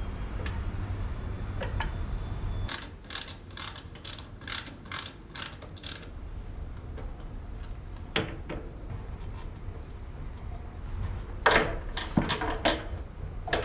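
Sharp metallic clicks of hand tools working on the moped's engine mounting: a run of about eight clicks, two or three a second, then a few scattered clicks and a quick cluster near the end. A low hum stops about three seconds in.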